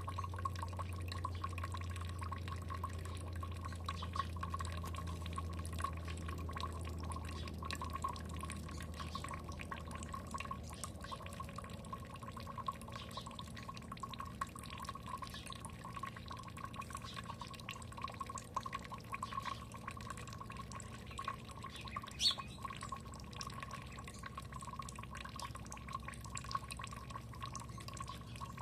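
Water dripping and trickling steadily, with many small drops and splashes over a steady running sound. A low hum fades out in the first third, and a single short high call is heard about three-quarters of the way through.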